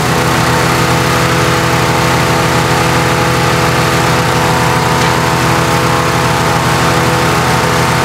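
BWM Pro100 chipper shredder's petrol engine running at a steady, even speed with no wood being fed in.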